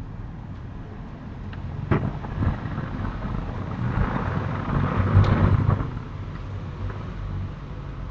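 A sharp knock about two seconds in and a fainter one soon after, then a low rumbling noise that swells and fades over about two seconds, coming from a neighbouring house.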